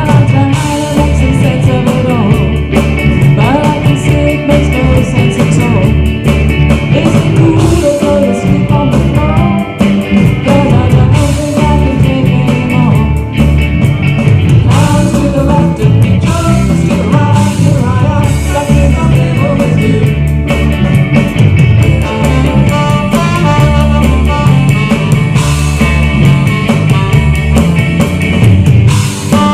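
Live rock band playing loudly, with singing over drums, bass and guitar.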